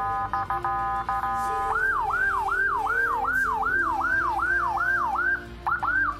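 Electronic siren played through a Federal Signal TS-200N siren speaker with the volume turned low. It opens with a rapid stepped pattern of several tones, then about two seconds in switches to a fast yelp, rising-and-falling whoops about three a second, with a short break near the end.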